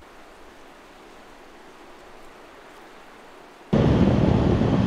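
Faint, steady outdoor hiss, then a little over three and a half seconds in a sudden jump to loud wind rushing over the microphone of a camera on a moving motorbike.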